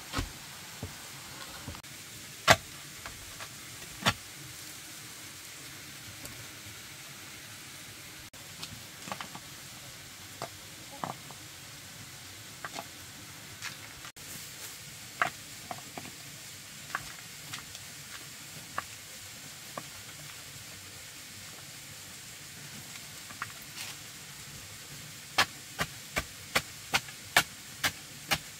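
Sharp knocks and taps of tool work on wood, scattered one by one, then near the end a regular run of strikes, about two a second, like chopping.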